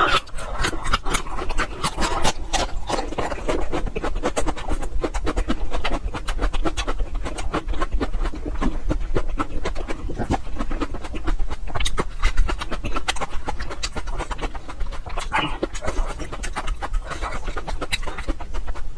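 Close-miked chewing of a mouthful of raw ginger root: a dense run of crisp, fibrous crunching clicks with wet mouth sounds.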